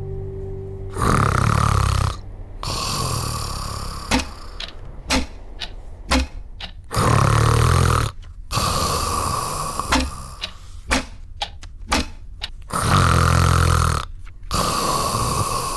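A man snoring in his sleep: three rattling in-breath snores about six seconds apart, each followed by a long hissing out-breath, with short clicks in between.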